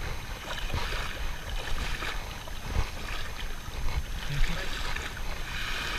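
Wind buffeting the microphone, with irregular low thumps, over small waves lapping in shallow sea water.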